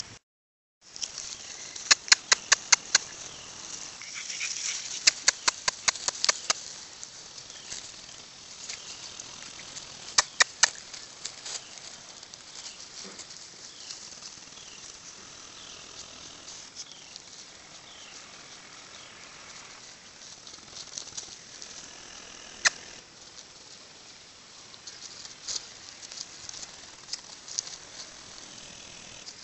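Dry leaf litter and twigs crackling under puppies' paws as they move about, heard as quick runs of sharp clicks and one louder snap later on.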